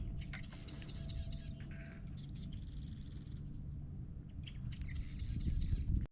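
Birds singing: three bursts of high, rapid trilling, each about a second long, over a low steady rumble.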